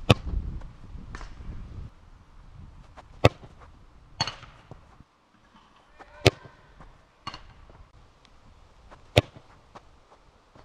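A football kicked hard in free-kick shots: four sharp thuds about three seconds apart, with fainter knocks between them.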